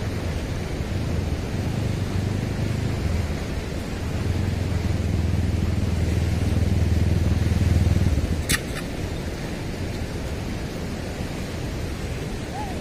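Steady rushing of a swollen, fast-flowing river at a weir. A low rumble runs under it and stops about eight seconds in, followed by a single sharp click.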